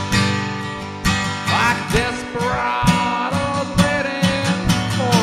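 Instrumental country music: acoustic guitar picking and strumming a steady rhythm, with a lead line that slides and bends in pitch about two seconds in.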